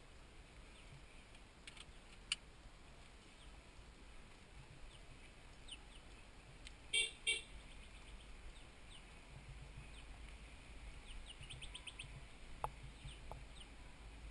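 Birds chirping faintly and intermittently, with two loud short pitched calls close together about halfway through and a single sharp click about two seconds in.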